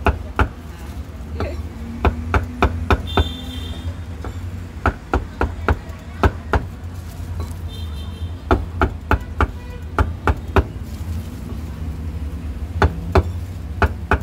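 Meat cleaver chopping cooked pork offal on a thick round wooden chopping block: quick runs of sharp chops, about four or five a second, with short pauses between the runs.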